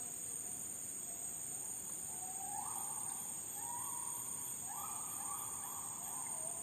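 Steady high-pitched chorus of forest insects such as crickets or cicadas, with an unseen animal calling from about two seconds in: a run of four or five notes, each rising in pitch and then held briefly.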